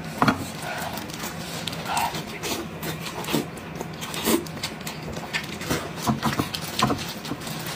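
Close-up eating sounds: chewing and mouth smacks on cooked sheep's head meat, with disposable plastic gloves crinkling as the meat is pulled apart by hand. The sound is a run of irregular wet clicks and rustles.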